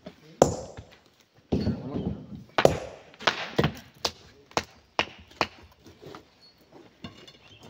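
A series of sharp knocks of steel and stone on rock: a sledgehammer striking a boulder to break it up, with broken stones clacking together as they are handled. The strikes come about every half second through the middle and grow weaker toward the end.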